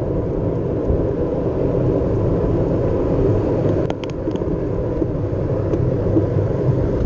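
Steady low wind rumble over the microphone of a camera on a moving bicycle, with a few faint clicks about four seconds in.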